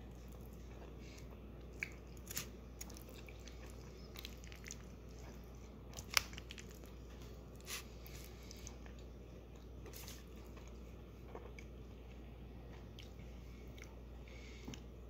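Faint chewing of buffalo chicken mac and cheese with crispy breaded chicken. Scattered crunches and sharp clicks come here and there, the loudest about six seconds in.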